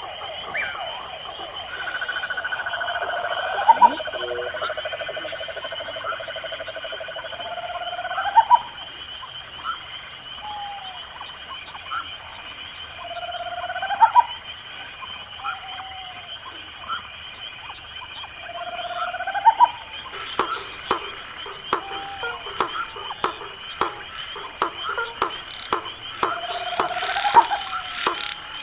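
Night chorus of crickets trilling steadily and high, with a lower call that repeats about every five or six seconds and rises at its end. A run of quick clicks joins in the second half.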